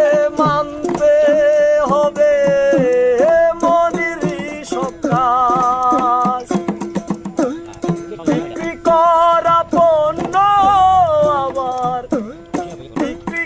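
Background music: a Bengali song, one voice singing a wavering melody over hand percussion and a steady held note.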